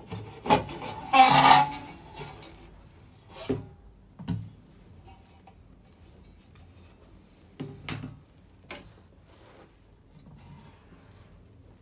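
Welder foot pedal's housing being pulled apart by hand: a loud scraping rub about a second in, then a few scattered clicks and knocks as the parts are handled.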